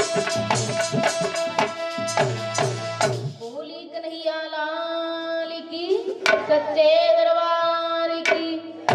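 Live folk music: a hand drum beats a fast rhythm over steady held chords until about three seconds in, when the drum stops and a woman sings long held notes into a microphone over the sustained chords. Two sharp knocks come in the second half.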